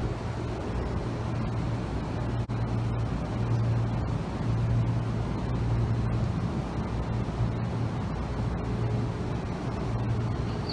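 Steady low hum and ambience of a stopped Tobu Tojo Line electric train standing at a station platform, its onboard equipment running. The low hum fades in and out.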